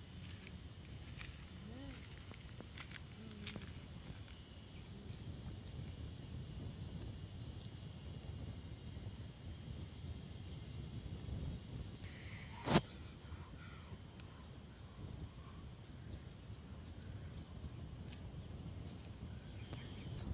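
Steady, high-pitched chorus of insects such as crickets or cicadas. About two-thirds of the way through it briefly grows louder and ends in a single sharp click.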